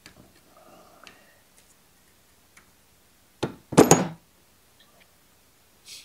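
Parts of a small-engine electric starter motor, the metal armature and its brush end cap, knocking and clattering against each other and a wooden workbench as they are fitted together by hand: a single knock, then just after it a louder short clatter, with faint handling scrapes around them.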